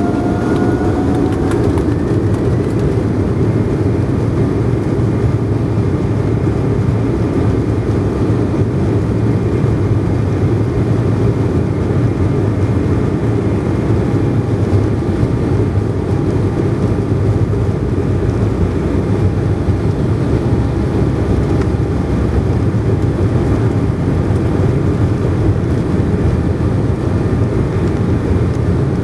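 Embraer E190's GE CF34 turbofans heard from inside the cabin during the takeoff roll: their whine rises in pitch over the first couple of seconds as they spool up to takeoff thrust. Then a steady loud rumble with a fainter whine as the jet accelerates down the runway.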